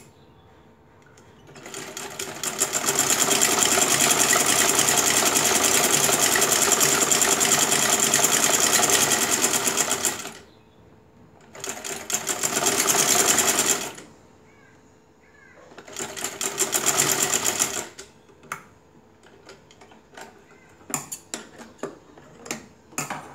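Sewing machine stitching a straight line of long gathering stitches through cotton fabric, in three runs: a long one of about eight seconds, then two short bursts with pauses between. Near the end, a few light clicks and snips as the thread is cut with scissors.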